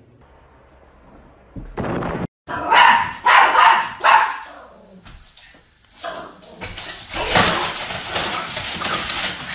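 Small dog barking, about four quick high barks, followed a few seconds later by a longer stretch of noise.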